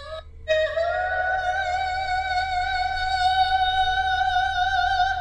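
Music played through a small portable Bluetooth speaker: after a brief gap, one long held note starts about half a second in and sustains steadily with a slight waver.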